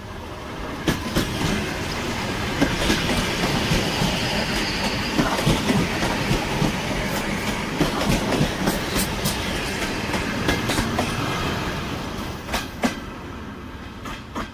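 ED4M electric multiple unit passing close by, its wheels clicking over rail joints. The sound builds as the train arrives, stays loud while the cars go past, and fades as the last car moves away, with a final couple of clicks near the end.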